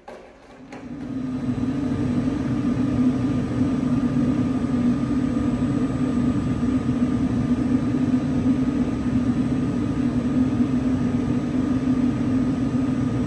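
REVEN X-CYCLONE XSC electrostatic oil mist separator switched on: its fan runs up to speed over about a second and a half, then holds a steady hum with a few faint steady tones above it.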